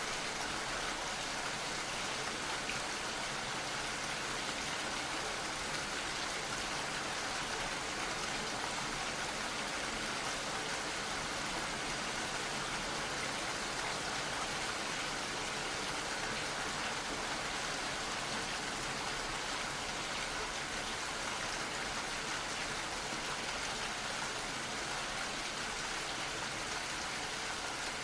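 Gentle rain falling steadily, an even hiss of drops with no change in strength.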